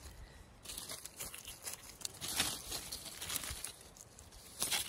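Irregular rustling and crackling of dry pine needles and fallen leaves as a gloved hand digs into the forest floor and pulls out matsutake mushrooms. The loudest rustle comes near the end.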